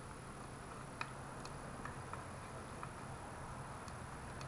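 A few faint, scattered light clicks of small engine parts being handled and worked loose at a dirt bike's cylinder head. A low steady hum runs underneath.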